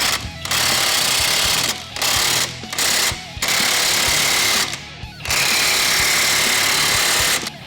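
Air impact wrench hammering in five bursts, the last and longest about two seconds, as it drives a ball joint press that seats the upper ball joint into a Jeep Wrangler TJ's front axle knuckle. Guitar music plays underneath.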